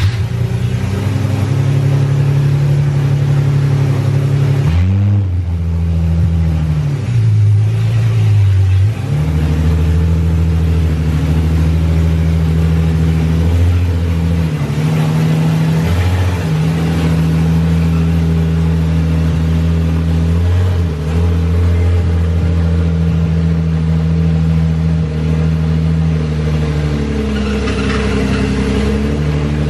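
BMW M30B35 3.5-litre straight-six on individual throttle bodies, running loudly through its exhaust as the E28 pulls away slowly under its own power. The engine speed dips and recovers several times.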